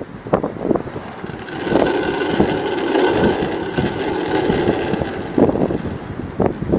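Wind gusting on the microphone, with the bronze Time and Tide Bell ringing faintly through it as it is played by hand.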